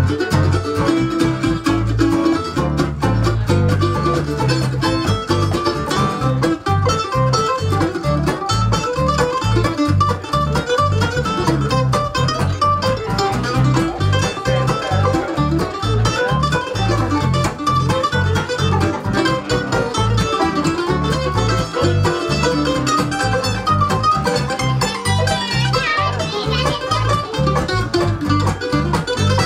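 Bluegrass band playing an instrumental passage on banjo, mandolin, acoustic guitar and electric bass guitar, the bass plucking steady notes on the beat.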